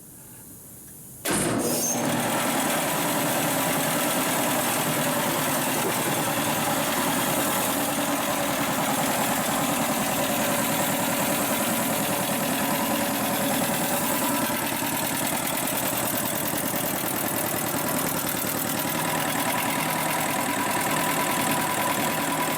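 A 1968 DeVilbiss 445 10 hp belt-driven electric air compressor starting up about a second in and then running steadily with a fast, even pumping beat as it builds pressure in its tank.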